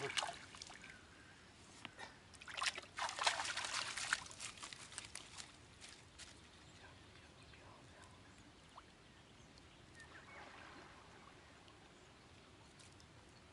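Water splashing and sloshing around a landing net with a freshly caught pigo in it at the water's edge. It is loudest for a couple of seconds a few seconds in, then settles to faint dripping and trickling.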